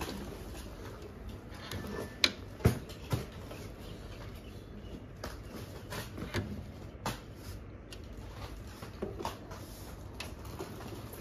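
Scattered light clicks and knocks as clear plastic air tubes and fittings are handled and fitted on the wax injection machine's clamp unit, the sharpest few about two to three seconds in.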